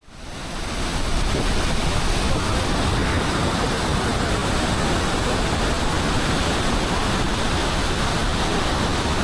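Roar of a large waterfall: a loud, steady rush of falling water that fades in over the first second.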